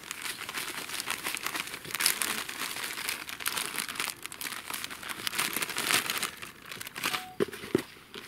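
Plastic groundbait packet crinkling and rustling as it is squeezed and emptied, with dry groundbait mix pouring into a plastic bucket. It is a dense crackling rustle throughout, and near the end hands dig into the mix in the bucket.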